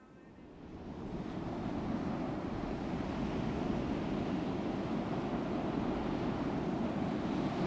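Ocean surf: waves breaking and washing onto a beach, a steady rushing that swells in over the first second or so.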